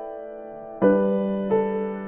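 Soft background piano music: slow, sustained chords and notes struck about once a second, each fading away before the next.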